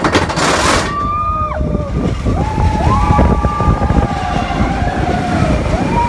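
Expedition Everest roller coaster train rumbling along its track, with a rush of wind at the start. Riders let out long held screams that slide up and down in pitch.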